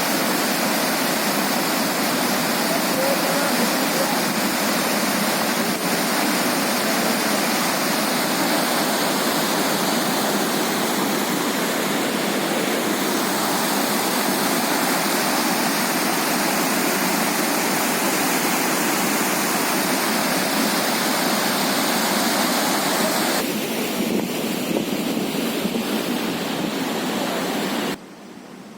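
Floodwater rushing loudly in a steady roar of water. It thins out about three-quarters of the way through and cuts off sharply near the end.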